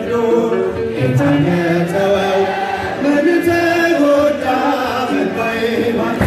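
Men's voices chanting an Ethiopian Orthodox mezmur (hymn) together, a slow melody on long held notes that step up and down.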